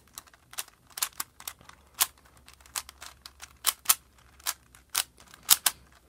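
A Megaminx puzzle being scrambled by hand: a string of sharp plastic clicks as its faces are turned, a few per second at an uneven pace.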